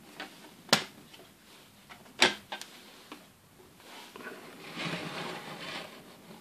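Red plastic gate doors of a Playmobil toy fire station being swung open, with two sharp clicks about a second and a half apart and a few lighter ticks. Near the end, a rustling scrape of the plastic module being handled and moved.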